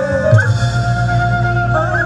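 Sundanese jaipong music from a gamelan ensemble: held, sliding melody tones over the band, with a deep stroke about a third of a second in that rings on low beneath it.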